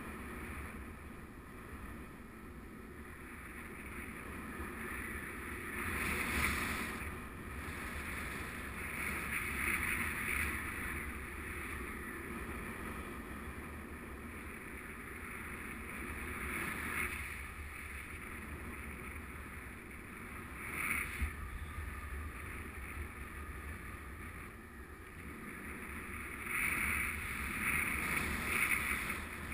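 Airflow rushing over the microphone of a camera riding on a paraglider in flight, a steady noise that swells louder every few seconds.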